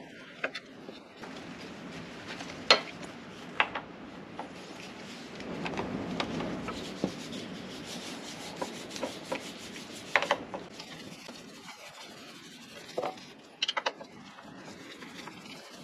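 Hand tool undoing the front brake caliper bolts on a Ducati 999S fork leg: rubbing and scraping of the tool, with scattered sharp metallic clicks.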